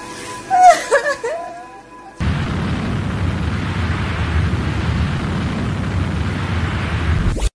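A few short squeaky sounds that slide up and down in pitch, then a loud rumbling noise that starts suddenly about two seconds in, holds steady for about five seconds and cuts off abruptly.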